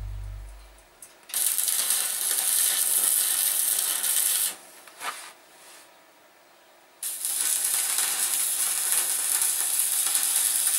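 Electric arc welding on steel: two runs of steady crackling hiss, each about three to four seconds long, with a quiet pause between them.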